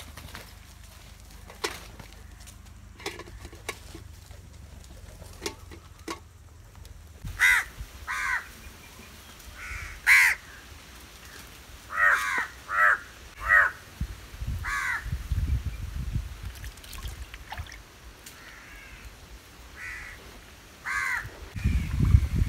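Crows cawing: about nine short, harsh calls, some in quick pairs, starting about seven seconds in. A few faint clicks come before them.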